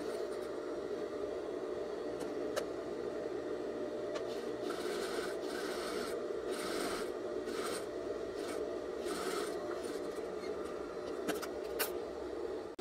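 Straight-stitch sewing machine running steadily, sewing a seam in thin crepe fabric at a short 1.5 stitch length. A couple of clicks sound near the end, and the machine stops just before the end.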